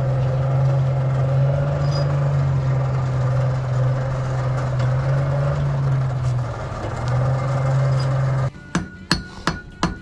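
A forge blower runs with a steady low hum and rushing air, then cuts off abruptly about eight and a half seconds in. Sharp, ringing hammer blows on steel at the anvil follow, about three a second.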